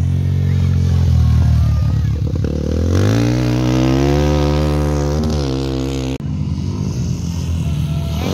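Off-road dirt bikes racing past on a gravel rally stage, engines revving hard. The engine pitch sinks early on, then climbs steadily from about three seconds in as a bike accelerates. About six seconds in the sound cuts off sharply and another bike's engine takes over.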